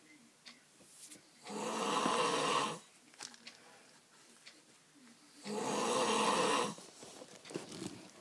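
A man snoring loudly in his sleep: two long snores about four seconds apart, each on an in-breath, with near quiet between them.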